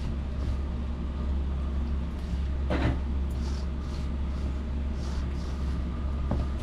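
Hands kneading rice-flour murukku dough in a bowl, with a couple of brief sharper squishing sounds, about three seconds in and near the end, over a steady low hum.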